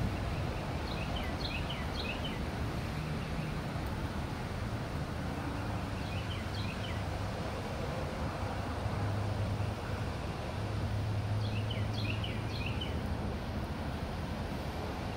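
Outdoor ambience: a steady low rumble and hiss, with small birds chirping in short runs of quick high notes about four times.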